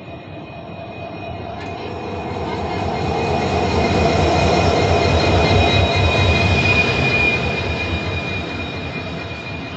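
EMD WDP-4-series diesel locomotive and its passenger coaches passing close by on the adjacent track, a rushing rumble of engine and wheels that builds over the first few seconds, peaks midway and eases as the coaches go by. A steady high whine runs through it.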